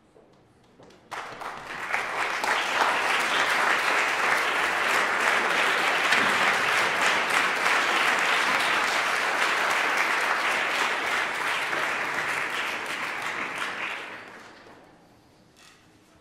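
Audience applauding, starting about a second in, holding steady, and dying away near the end.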